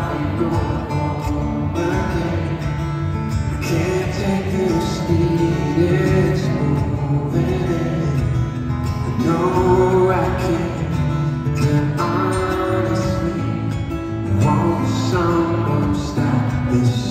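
Solo acoustic guitar played with a picked, flowing accompaniment, with a man singing softly over it, amplified through the house sound system.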